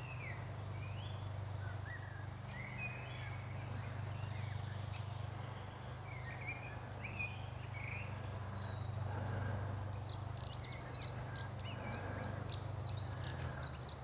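Several songbirds chirping and singing, with a high thin trill about a second in and a busier run of chirps and trills in the last few seconds, over a steady low hum.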